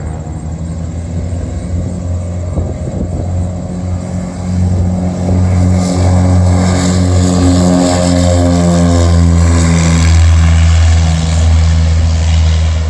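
A Cessna light propeller plane passing, its piston engine and propeller droning. It grows louder about four seconds in, with the pitch bending as it goes by, and eases off slightly near the end.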